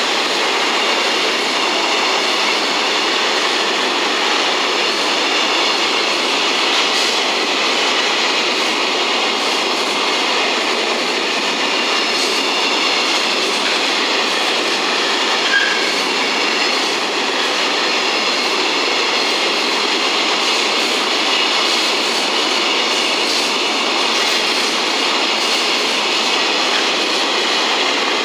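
A long JR Freight container train rolling past at speed, its flat wagons' wheels running on the rails with a steady, even rumble and rattle. There is one brief high squeak about halfway through.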